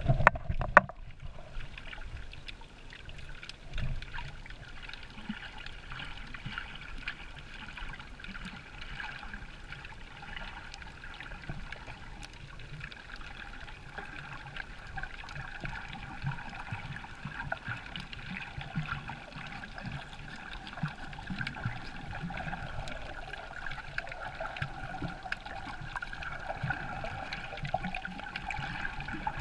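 A brief splash as the camera dips under the surface in the first second, then steady, muffled underwater water noise with many scattered faint clicks.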